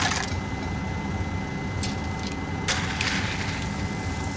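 An engine running with a steady low hum, and a few short gritty scrapes: at the start, just before two seconds in, and around three seconds in.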